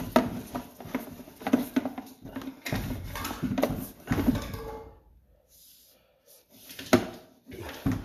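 Rattling and knocking of a sewer inspection camera's push cable and head being worked through a drain line, with a low rumble about three seconds in. The camera is at the point where it will not advance any further. It goes much quieter about five seconds in, then gives one sharp knock near the end.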